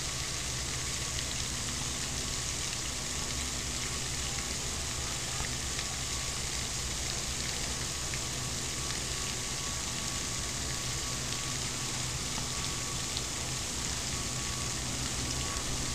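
Steady background hiss with a faint low hum underneath; the cranes make no calls.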